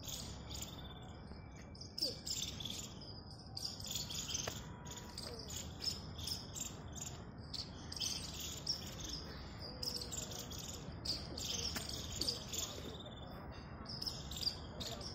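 Small birds chirping and twittering continuously in irregular short calls, over a steady outdoor background hum.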